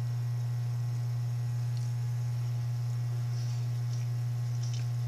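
A steady low hum, with a few faint soft clicks of hand-eating and chewing.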